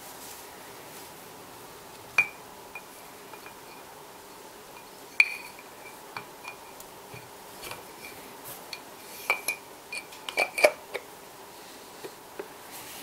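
Metal parts of a Biax electric scraper clinking and knocking together as the gear housing is fitted back onto the motor body. A sharp clink comes about two seconds in and another about five seconds in, each leaving a thin ringing tone, then a quick cluster of knocks near ten seconds in.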